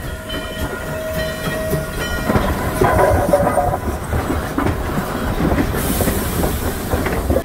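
Steam locomotive passing close by: its bell strikes about once a second at first, then the engine, tender and coaches clatter over the rail joints as they go past, loudest about three seconds in, with a hiss near the end.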